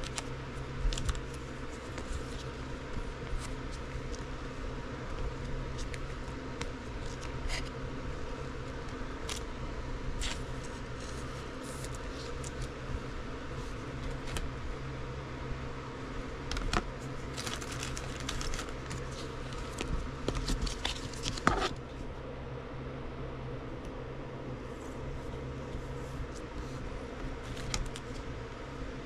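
Soft clicks and rustles of trading cards and plastic being handled over a steady low hum, with a run of sharper clicks and scrapes about 17 to 22 seconds in.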